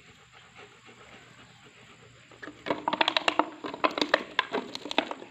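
Belgian Malinois puppies play-fighting: faint rustling at first, then from about halfway in a quick run of short yips and scuffles.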